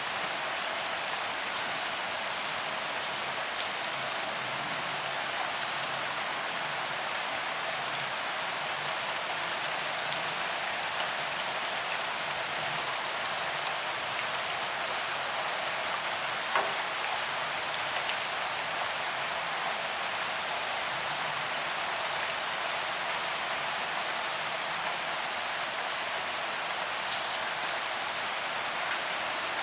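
Heavy rain falling steadily with no thunder: an even hiss flecked with small drop ticks, and one sharper tick about halfway through.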